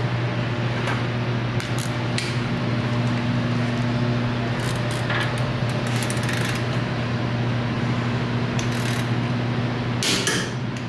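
Socket and wrench work on suspension bolts: scattered metallic clinks and clicks, a few more together near the end, over a steady low hum.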